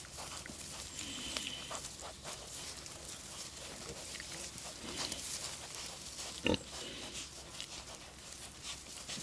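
Three-week-old piglets grunting softly while chewing and rustling through grass and leaves, with one short, louder squeal about six and a half seconds in.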